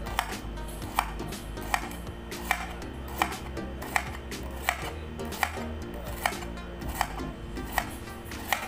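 Kitchen knife slicing a cucumber into rounds on a plate: an even run of sharp clicks, about one every three-quarters of a second, as the blade goes through and taps the plate.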